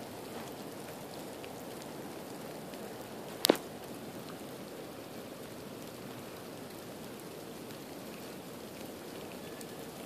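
Steady patter of ice pellets mixed with rain falling. A single sharp click stands out about three and a half seconds in.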